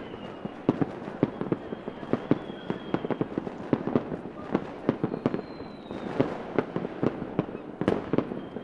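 Fireworks going off: a dense, irregular run of sharp pops and crackles, several a second, with a few faint high whistles that sag slightly in pitch.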